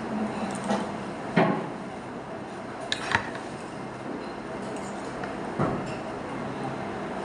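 Metal fork and spoon clinking and scraping against a plate, a handful of short sharp clinks spread through, over a steady low background hum.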